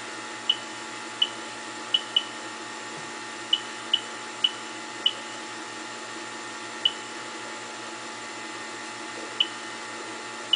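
Ludlum counter with a boron neutron-detector tube clicking at irregular intervals, about eleven sharp clicks in ten seconds, more of them in the first half. Each click is a neutron count from the deuterium fusor running at full voltage, and the sparse rate is what the builder calls "pretty pathetic neutrons". Under the clicks runs a steady hum and buzz from the running fusor equipment.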